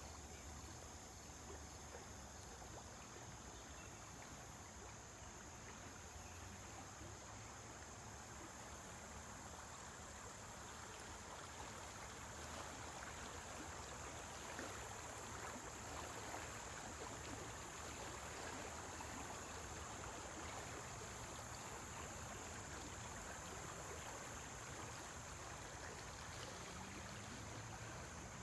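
Faint, steady rushing and trickling of flowing water, a little louder about halfway through, over a steady high hiss.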